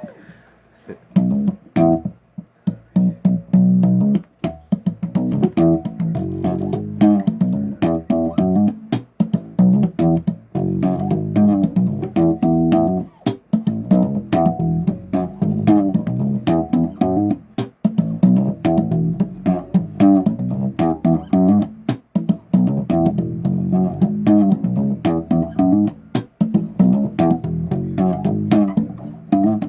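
Bass guitar playing a fast riff of short plucked notes, each with a sharp attack, starting about a second in and stopping just before the end.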